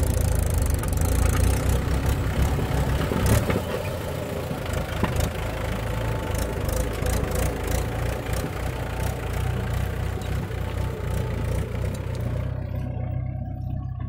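Diesel engines of a JCB 3DX backhoe loader and a Mahindra 415 DI tractor running steadily at a low drone, with scattered short clicks and knocks over it. The higher noise drops away near the end.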